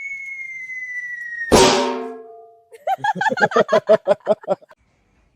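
Added sound effects: a slowly falling whistle tone that ends in a loud crash with a ringing tail, then a quick run of about a dozen pitched drum hits, about six a second.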